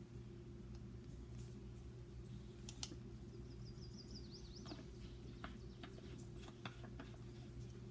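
Faint steady room hum with scattered light plastic clicks and taps as a sealant bottle and a plastic syringe are handled, including a quick run of tiny ticks a few seconds in.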